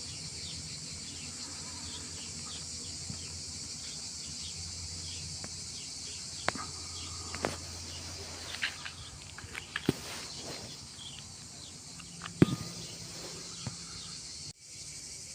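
Steady high-pitched hiss with a low hum underneath, broken by scattered clicks and knocks; the hum fades out about halfway through, and the loudest knock comes near the end.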